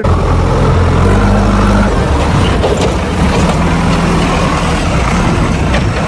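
Diesel engine of a JCB backhoe loader running steadily, a deep rumble that shifts slightly in pitch.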